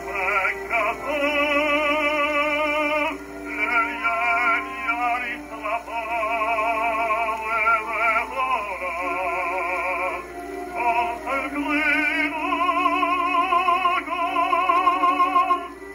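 A 1910 acoustic-era Victor Red Seal 78 rpm shellac record playing on a Victor Victrola VIII acoustic phonograph with a steel needle: an operatic tenor and baritone duet with orchestra. The voices sing with wide vibrato, and the sound is thin, with no high treble.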